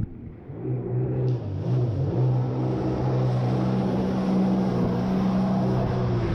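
Jet ski engine running under way. The engine note dips briefly at the start, picks up again within about a second, then holds steady.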